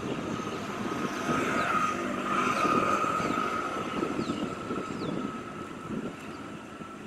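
A motor vehicle passing on the road, its engine and tyre noise swelling about two seconds in and then fading away.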